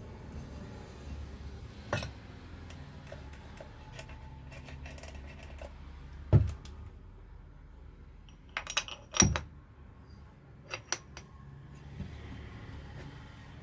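Metal tools and starter-motor parts clinking and knocking as they are handled, with two louder knocks about six and nine seconds in, over a steady low hum.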